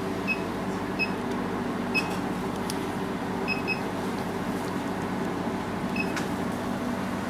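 OPT SHR beauty machine beeping as its handpiece fires light pulses: six short high beeps, the first few about a second apart, then a close pair and one more near the end, with a sharp click near three seconds and another after six. Under them the machine runs with a steady hum.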